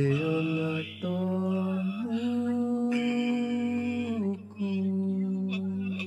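A man's voice singing a slow traditional Tokelauan song in a few long held notes, with short slides between pitches, over a steady low hum. The singing stops at the end.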